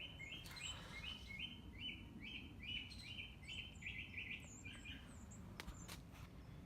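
A bird singing a rapid run of short, repeated chirps, about three a second, for about five seconds before stopping.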